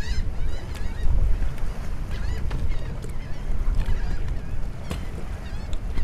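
Strong wind buffeting the microphone in a steady low rumble, with birds giving short high calls several times.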